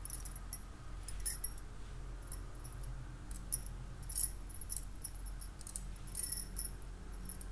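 Bangles on a wrist clinking and jingling lightly as the hands rub and move, in short scattered clusters several times over, above a faint low hum.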